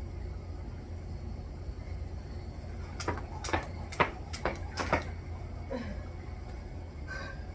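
Jump rope slapping the ground as she skips, five sharp strokes about two a second, starting a few seconds in, over a steady low rumble.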